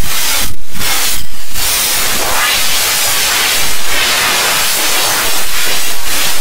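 Loud, harsh static-like hiss of heavily effects-processed, distorted audio. Two short dips break it in the first second and a half, and then it runs on steadily.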